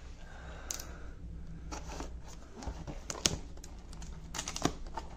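Utility knife cutting the tape seal of a cardboard box, with scraping and a run of sharp clicks and taps in the second half as the blade and box are worked.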